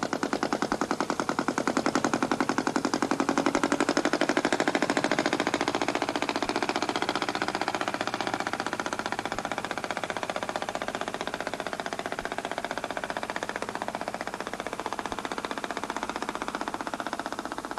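Inboard engine of a wooden open fishing boat running at steady cruising speed, a rapid, even beat of firing strokes, a little quieter after about five seconds.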